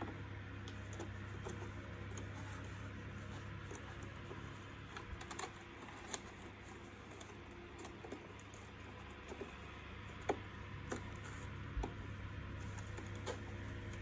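Scattered small plastic clicks and taps as gloved hands seat wire connectors and a circuit board into a vacuum cleaner's plastic housing, with a few sharper clicks in the second half, over a steady low hum.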